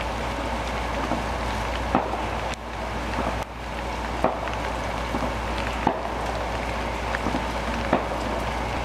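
Fireworks going off across the street: a steady hissing and crackling, with four sharper pops about two seconds apart.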